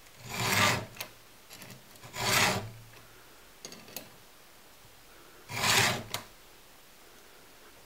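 Round chainsaw file in a clamp-on angle guide rasping across a steel chain cutter tooth: three push strokes of about half a second each, spaced irregularly a second or more apart, with faint clicks between as the file is lifted and set back.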